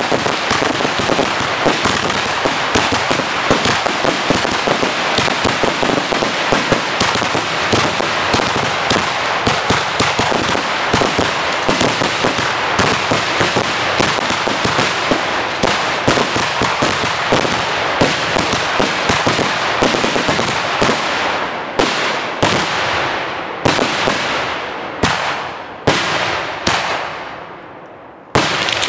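Fireworks crackling and banging in a dense, continuous barrage for about twenty seconds. The barrage then thins into a few separate bursts that each fade away. After a short lull, a new loud barrage starts suddenly near the end.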